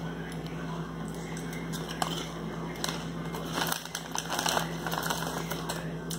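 Crunchy kettle chips being chewed, with sharp crackly crunches, then a plastic chip bag crinkling as a hand reaches into it about four seconds in. A steady low hum runs underneath.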